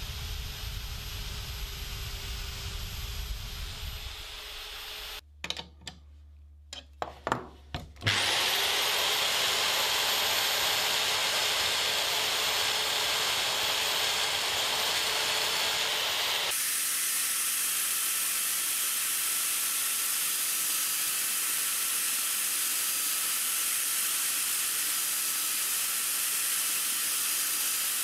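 Drill press boring into birch plywood with a Forstner bit, then a few knocks. At about eight seconds a router with a spiral bit spins up with a rising whine and runs steadily while milling the pilot hole to final size; its sound changes abruptly about halfway through.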